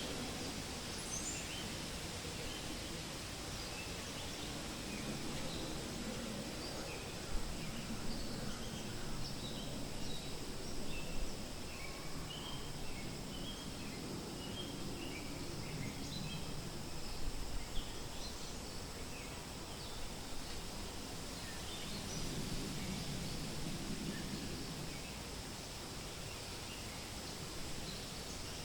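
Wind rustling through forest leaves, rising and falling in slow gusts, with scattered short bird chirps throughout.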